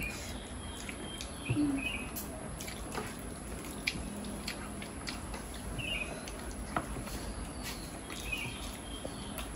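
Close-up eating sounds of people eating rice and curry by hand: scattered soft mouth clicks and lip smacks from chewing. Small birds chirp briefly in the background a few times.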